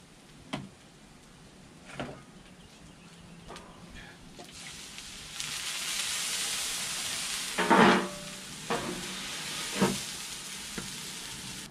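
Food and oil sizzling on a hot Blackstone flat-top griddle. The hiss swells about halfway through as oil is squirted onto the hot steel, then eases off, with a couple of sharp knocks near the end as the metal cover is handled and set down on the griddle.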